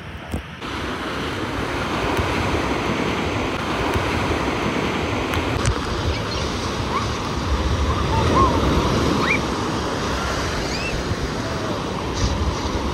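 Ocean surf breaking and washing in over the shallows, a steady rushing that rises about half a second in.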